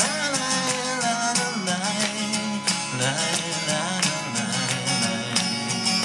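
Acoustic guitar strummed in a steady rhythm, with a man's singing voice holding a wavering wordless line over it.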